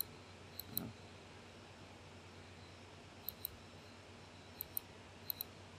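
Faint computer mouse clicks over quiet room tone: three quick press-and-release click pairs in the second half.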